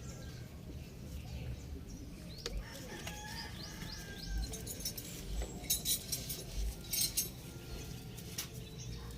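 Small birds chirping, with several short chirps through the whole stretch. About five and a half seconds in comes a quick run of sharp clicks or clinks, the loudest sounds here.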